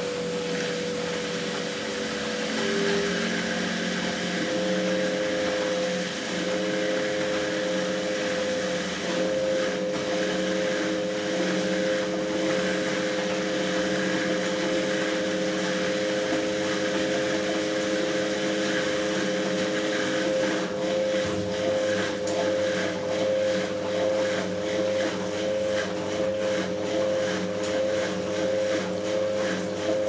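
Eudora Goldkind EU 340 front-loading washing machine running a rinse cycle: a steady motor hum with a held tone while the drum tumbles the wet laundry through the water. A lower hum joins about two-thirds of the way in, and the sound turns more uneven and rhythmic.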